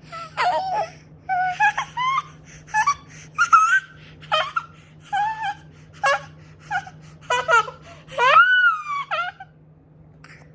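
A toddler making a string of short, high-pitched squeals and whiny cries, some rising and some falling in pitch, with a longer, louder drawn-out wail near the end.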